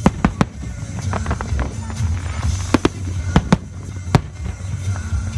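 Aerial firework shells bursting in a series of sharp bangs, about nine in all, with the loudest at the very start and around three and a half and four seconds in. Music with a steady, heavy bass plays underneath.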